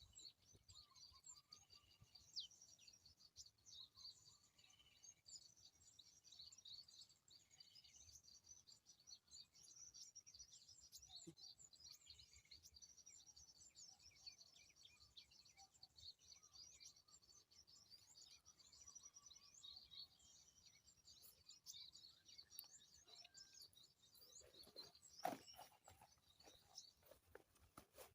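Faint, dense high-pitched chirping and twittering of small birds, running on without a break. A single sharp knock sounds once near the end.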